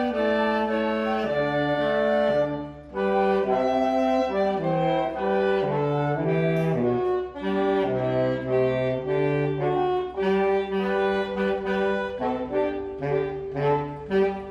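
A small instrumental band playing a medley of Christmas carols strung together, several parts at once in mostly held notes, with a short break about three seconds in and shorter, detached notes near the end.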